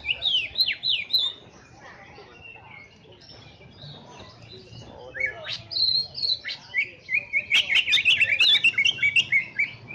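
Caged cucak ijo (green leafbirds) singing: sharp falling chirps in the first second, a quieter few seconds, then a loud, fast run of chattering chirps and clicks from about seven and a half seconds until just before the end.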